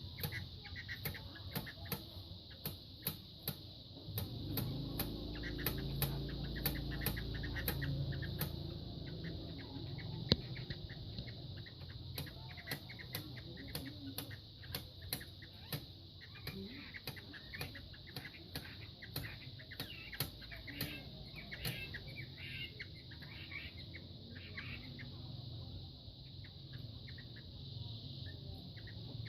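Two fighting cocks sparring: a run of sharp wing beats and strikes, dense for the first half and then more scattered, with the birds' clucking.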